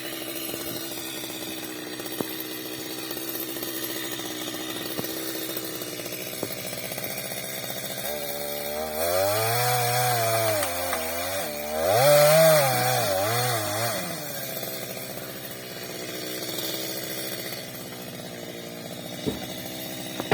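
Chainsaw running steadily, then from about eight seconds in its engine pitch rises and falls repeatedly as it cuts wood, loudest about twelve seconds in, before settling back to a steadier, quieter running.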